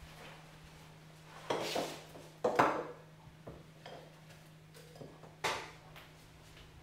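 Kitchenware being handled and set down on a wooden worktop: a few knocks and clinks of glass and pots, the loudest about two and a half seconds in, over a faint steady hum.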